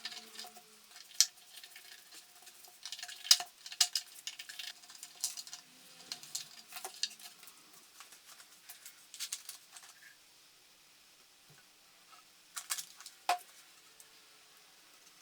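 Irregular light clicks, taps and short scrapes of hand work on small wooden and metal drawer parts, with a quieter spell near the end and a few last clicks.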